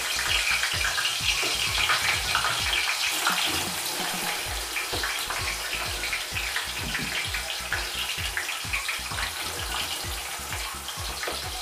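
Thinly sliced onions deep-frying in hot oil over a high flame: a steady sizzle full of small crackles, a little louder in the first few seconds.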